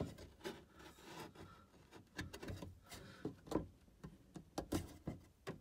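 Tripp-Lite Isobar surge protector strip being jiggled on its mounting screws against the desk panel, giving light, irregular knocks and clicks. Only a little rattle: the strip sits nearly snug.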